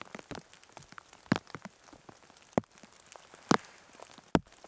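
Rain in a forest: heavy drops tapping at irregular intervals, four of them loud and a scatter of lighter ones, over a faint steady hiss.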